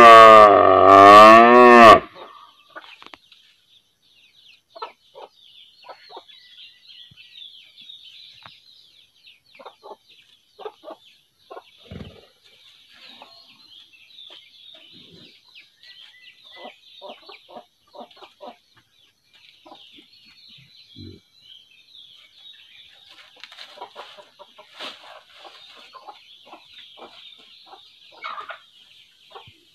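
A cow moos once, loud and long, its pitch wavering up and down, ending about two seconds in. After it come faint scattered chicken clucks over a steady high chirping of birds or insects.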